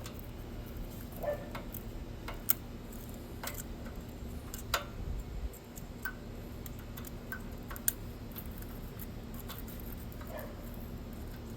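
Occasional light metallic clicks and taps of hand tools on the engine's valve rocker adjuster, a few seconds apart, as the valve clearance is set with a wrench and feeler gauge, over a faint steady hum.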